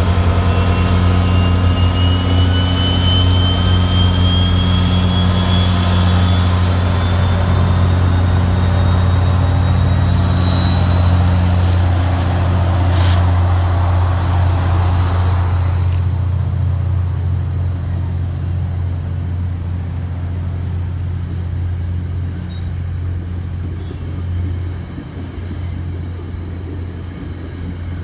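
NJ Transit locomotive-hauled commuter train pulling through with a steady low hum and a thin whine that rises in pitch over the first ten seconds as it gathers speed. After about a sharp click midway, the Comet IV coaches roll past and the sound slowly fades.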